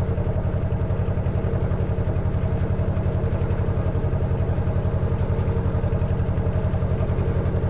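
Narrowboat engine running steadily under way, a low rhythmic throb. It is loud in the boat because the engine has no insulating padding underneath.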